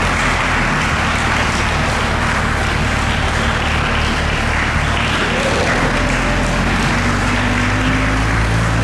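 Crowd applauding while a C8 Corvette's 6.2-litre LT2 V8 runs low and steady beneath, the car rolling slowly away at walking pace.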